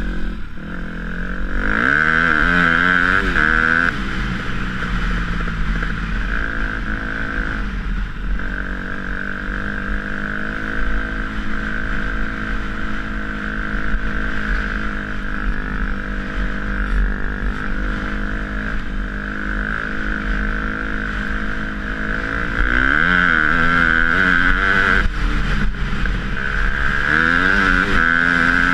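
KTM 250 SX-F four-stroke single-cylinder motocross bike engine under way, heard from the rider's helmet. It revs up near the start, holds a steady cruise for most of the run, then accelerates again about 22 seconds in, with a brief drop in revs at a gear change before pulling higher.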